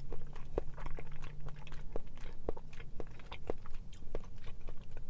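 A person chewing tapioca boba pearls close to a lapel microphone: irregular mouth clicks and smacks, a few each second.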